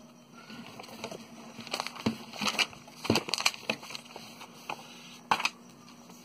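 Paper and cardboard packaging rustling and crinkling as it is handled, with irregular sharp crackles and one louder crackle near the end.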